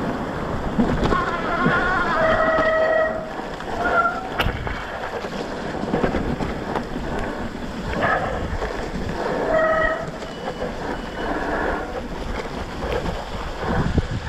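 Mountain bike disc brakes squealing in several short bursts of a second or so under braking on a descent, over steady wind and tyre rumble; the rear brake pads are worn out.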